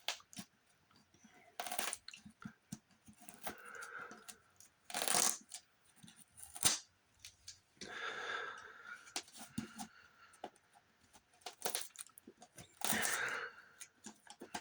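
Pliers tearing the glued fabric and paper from a book's spine: irregular clicks and crackles broken by several short ripping bursts.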